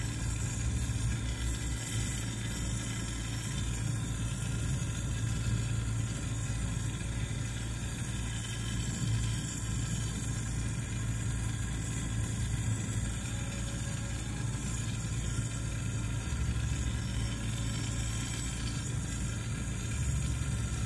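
Glassworking bench torch burning steadily: an even hiss over a low rumble.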